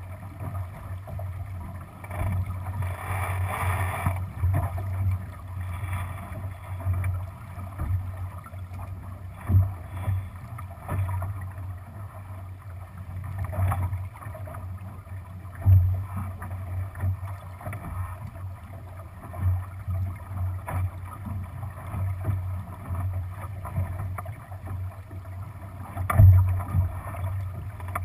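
Water rushing and slapping along a Lightning sailboat's hull as it sails, as a continuous low, uneven rumble. A few heavier thumps come through, the loudest near the end.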